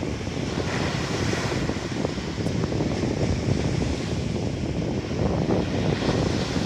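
Wind buffeting the microphone over the steady wash of small sea waves on the shore.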